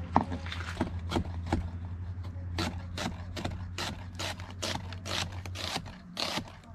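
Kitchen knife slicing through a white onion held in the hand, a quick run of short crisp cuts, about two to three a second, over a steady low hum.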